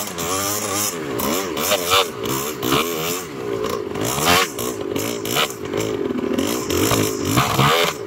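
1982 Honda ATC 250R three-wheeler's two-stroke single-cylinder engine, bored out and fitted with a larger carburetor, revving up and down over and over under throttle while riding through snow.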